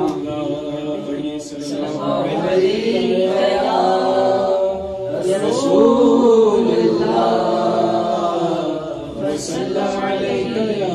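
Unaccompanied devotional singing of a naat, a man's voice amplified through a handheld microphone, drawing out long melismatic notes.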